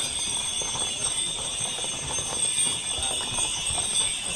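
Shod hooves of several ridden horses clip-clopping at a walk on an asphalt street, an uneven patter of knocks, over a steady high-pitched ringing.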